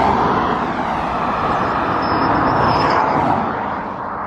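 Cars passing close by at speed on a two-lane road: a rushing tyre and engine noise that swells as each car goes past and eases off near the end.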